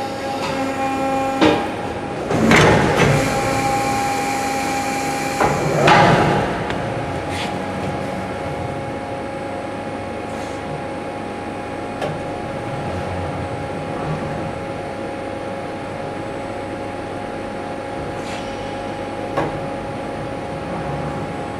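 CNC steel beam processing line running with a steady machine hum that carries a couple of high tones. A sharp metallic clank comes about a second and a half in, then two louder rattling clanks of steel on steel, and later only a few faint clicks.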